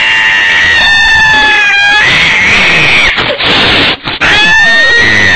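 Cats yowling in long, drawn-out, wavering wails, loud throughout, with a short break about four seconds in.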